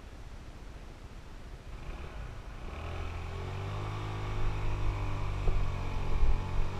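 Motorbike engine running as it is ridden: a low rumble at first, then the steady engine hum comes through about three seconds in and grows louder toward the end.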